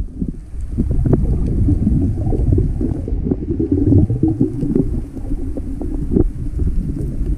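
Muffled underwater noise heard through a submerged camera: a low, churning rumble of water moving around the camera, with many small crackles and knocks.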